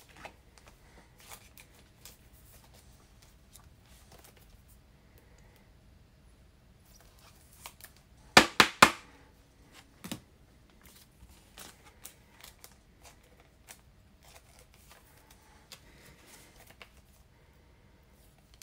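Trading cards and card packs being handled on a desk: faint rustles and light clicks, with a quick run of three or four sharp clicks about eight seconds in and one more a second or so later.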